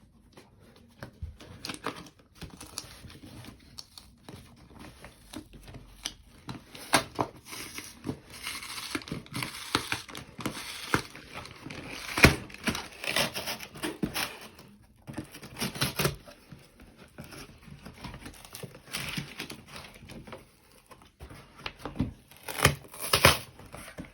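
Cardboard shipping box being opened by hand: tearing, crinkling packaging and rustling, with irregular clicks and knocks.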